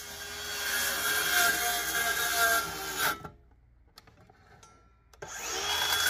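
DeWalt cordless circular saw cutting through an OSB sheet. It cuts for about three seconds, stops for about two, then starts cutting again about five seconds in.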